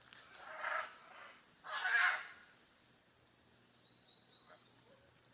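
Birds calling over faint outdoor ambience: two short harsh calls in the first two seconds, the second louder, with a brief high chirp between them, then only a faint background with a thin steady high whine.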